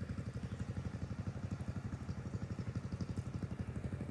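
A small engine idling steadily, with a low, even pulse of roughly ten beats a second.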